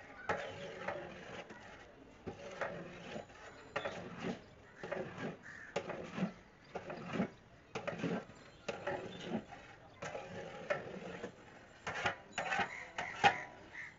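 A long metal ladle stirring rice and water in a large metal cooking pot, scraping and knocking against the pot in repeated strokes, roughly one a second.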